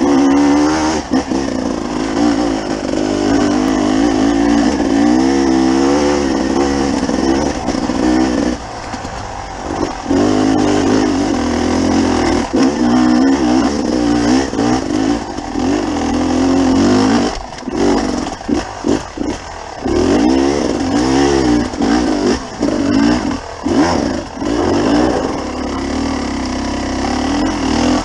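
300 cc dirt bike engine running at low revs, heard from the rider's helmet. Its pitch rises and falls repeatedly as the throttle is opened and closed, with several brief drops off the throttle in the second half.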